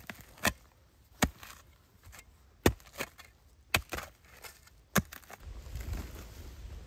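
Steel blade of a small spade chopping into stony, gravelly soil: five sharp strikes spaced about a second apart, with smaller scrapes of grit between them.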